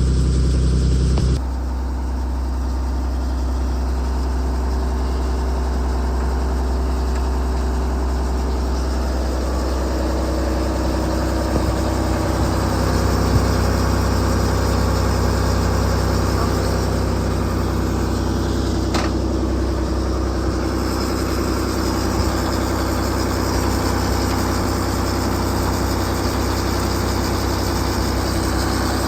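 Excavator's diesel engine idling steadily, with a low, even hum. The level dips slightly about a second and a half in.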